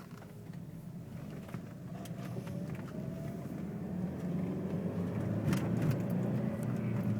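Audi A4 1.8T's turbocharged four-cylinder engine pulling the car away from inside the cabin, its note slowly rising and getting louder, with a few light clicks.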